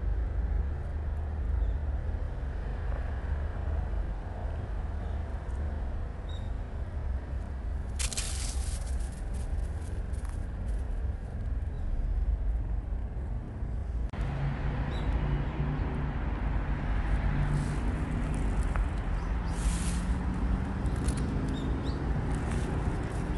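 Outdoor background with a steady low rumble of distant city traffic, and crackling rustles of plastic bags about eight seconds in and again near the end.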